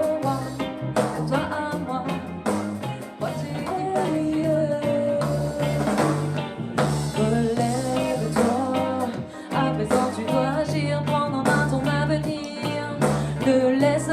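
Band playing a reggae-rock song: a pulsing bass line, guitar and drums, with a singer's voice holding and bending notes over it but no clear words.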